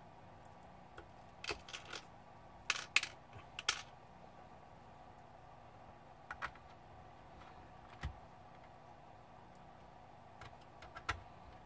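Scattered small clicks and knocks of plastic and metal laptop parts being handled and fitted during reassembly, in irregular bunches with the loudest about three seconds in.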